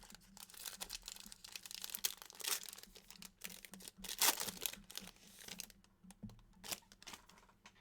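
Plastic card-pack wrapper crinkling and tearing as a pack of trading cards is opened, with light clicks and rustles of cards being handled. The sound comes in irregular crackling bursts, loudest about two and a half and four seconds in.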